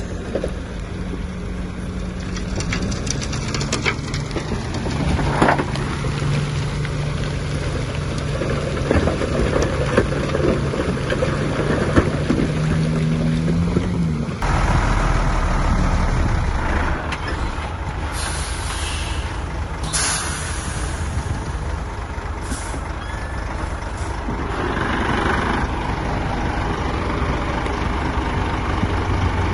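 Heavy diesel machinery running steadily, with its engine note shifting about halfway through. Several short, sharp hisses of truck air brakes come in the second half.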